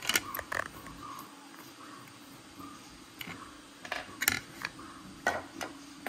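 Handling noise: a scattered series of sharp clicks and light knocks as hard parts are picked up, fitted and set down, the loudest about four seconds in.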